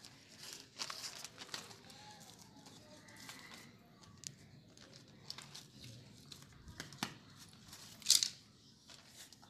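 Fingers and fingernails working through hair to pick off nits: soft rustling and crackling of hair strands with scattered small clicks, and one sharper click about eight seconds in.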